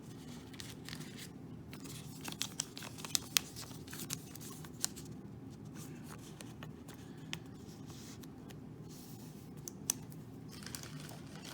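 Trading cards and plastic being handled: scattered small clicks and brief rustles, a few sharper ticks about three seconds in and again near the end, over a low steady hum.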